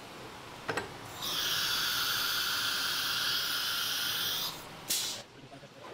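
Compressed air hissing from an HSD ATC spindle during an automatic tool change at the tool rack: a short pop, a steady hiss for about three seconds, then a brief sharp burst of air near the end.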